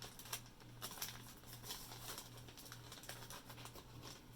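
Faint crinkling and small clicks of stapled packaging being handled and opened by hand.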